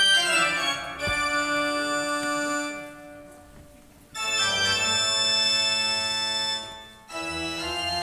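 Electronic keyboard playing slow chords in an organ-like voice: a short chord, then three long held chords of a couple of seconds each, with brief breaks between them.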